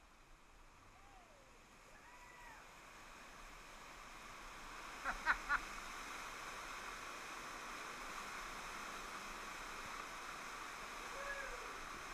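Rushing water of a water-park river's rapids in a rock tunnel, growing louder for the first few seconds as the inner tube drifts toward it, then holding steady. A few sharp splashes come about five seconds in.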